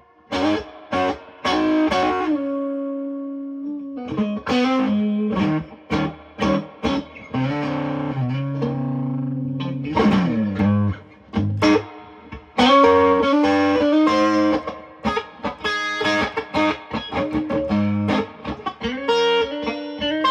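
Electric guitar played through a Matchless Lightning Reverb tube amp with a lot of reverb: strummed chords and picked notes, some held and ringing out, in phrases with short breaks.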